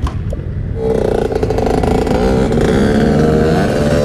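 Quad ATV engines revving, one accelerating away across sand; the engine notes climb and waver from about a second in, with more than one engine heard.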